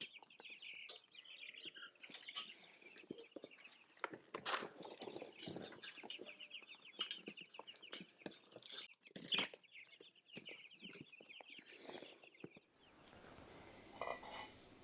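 Chickens clucking and chirping, with scattered knocks, then about thirteen seconds in a change to a faint steady hiss.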